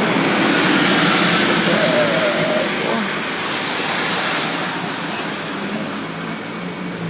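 A bus passing by on the road: its engine and tyre noise swells to its loudest about a second in, then fades slowly as it moves away.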